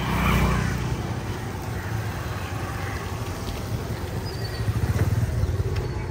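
A low engine rumble, like a motor vehicle running close by, loudest at the start and again about five seconds in.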